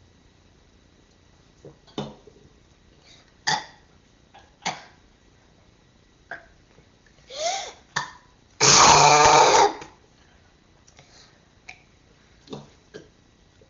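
A child burping in a string of short burps, with one long, loud burp lasting about a second a little under nine seconds in.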